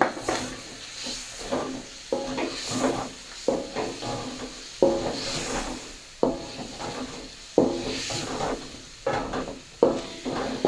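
A spatula stirring and scraping in a nonstick wok during a stir-fry, in repeated strokes about every second and a half, over a faint sizzle of frying.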